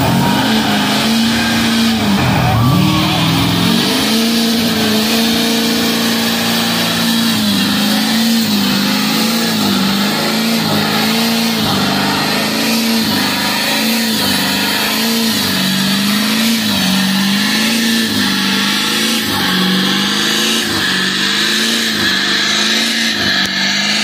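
Heavy-duty dual-rear-wheel pickup truck doing a burnout: its engine is held at high revs and spins the rear tires. The pitch drops and climbs back about two seconds in, then rises and falls every second or so as the throttle is worked.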